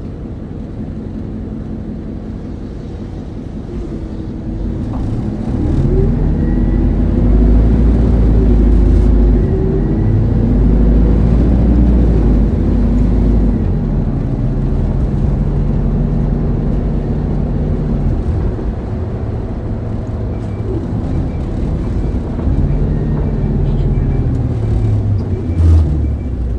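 Isuzu Erga city bus's four-cylinder turbodiesel heard from inside the cabin: it runs low at first, then pulls away and accelerates, its note stepping as it changes gear. It eases off and picks up again near the end.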